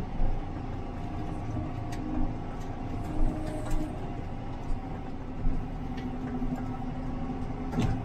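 Tractor engine running steadily, heard from inside the cab, with a few sharp knocks and rattles as the tractor jolts over rough pasture.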